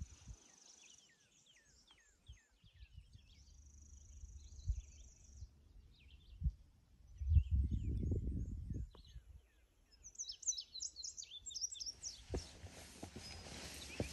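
Several songbirds singing in the open woods: a run of quick falling whistles, a high held trill, then a flurry of rapid chirps. A gust of wind rumbles on the microphone about seven seconds in, and footsteps on the rocky trail begin near the end.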